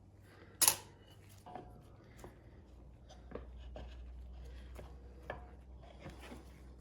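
Light clicks and taps of metal parts being handled as drum brake shoes and their backing plate are worked into the hub, with one sharper click about half a second in.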